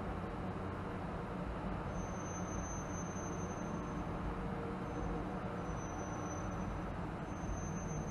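Steady road noise of a car driving through a highway tunnel, heard from inside the cabin: low engine and tyre rumble with an even hiss, unchanging throughout.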